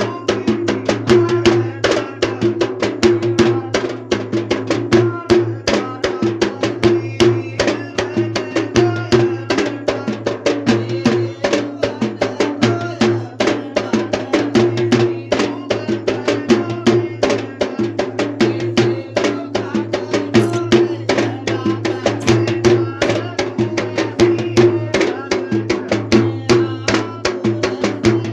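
Traditional Sri Lankan ritual drums playing a fast, dense rhythm without a break, over a steady sustained tone.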